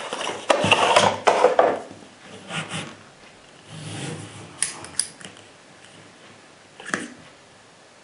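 A cardboard rifle-ammunition box being opened and its plastic cartridge tray slid out, with scraping and rustling for the first couple of seconds. This is followed by a few light clicks of brass .338 Winchester Magnum cartridges knocking in the tray as one is pulled out.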